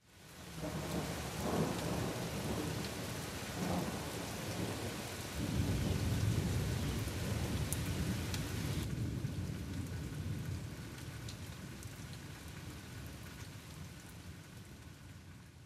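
Heavy rain falling on trees and foliage, with low thunder rumbling strongest in the first half; the sound fades out near the end.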